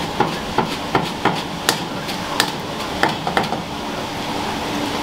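About a dozen sharp knocks and clacks of utensils in a ramen shop kitchen, coming at uneven intervals, over a steady low hum.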